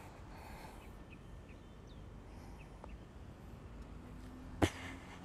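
Quiet outdoor ambience with a few faint bird chirps, then a single sharp click near the end.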